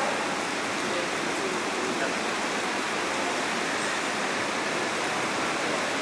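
Steady hiss of heavy rain in a rainstorm.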